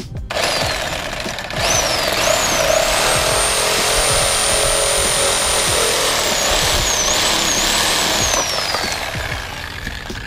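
Corded reciprocating saw cutting through PVC pipe, its motor whine rising and falling as the trigger is eased and squeezed. It gets up to full speed about a second and a half in and winds down near the end as the cut finishes.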